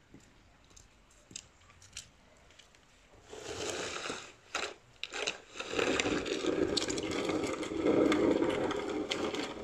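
A long-handled shovel scraping and crunching across paved ground and straw, with a few sharp knocks about four to five seconds in, then a longer, louder stretch of scraping.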